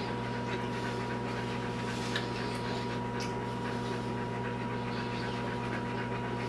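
A dog panting steadily close to the microphone, over a constant electrical hum.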